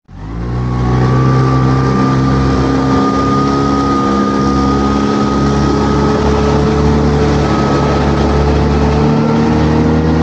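A small fishing boat's motor running at steady cruising revs under way, its pitch creeping slightly upward, over a constant rush of water and wind.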